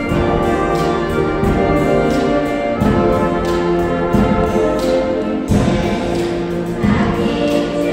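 Brass band playing held chords while a children's choir sings.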